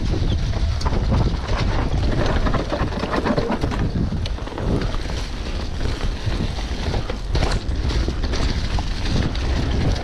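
Wind buffeting the microphone of a GoPro on a downhill mountain bike, over the rumble of tyres on rough dirt trail, with frequent quick clicks and knocks as the bike rattles over bumps.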